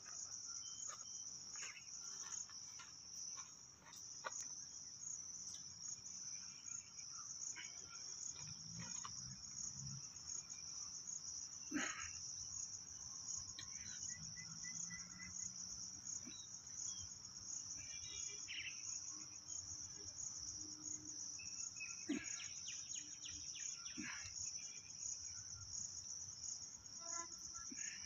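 Steady, continuous high-pitched insect chorus, with scattered short chirps and a few sharp clicks.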